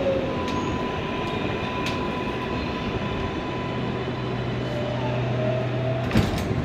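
Onboard a Kawasaki R142A subway train slowing into a station: steady rumble of wheels on rail with the whine of the electric propulsion shifting in pitch. A sharp knock about six seconds in as the train comes to a stop.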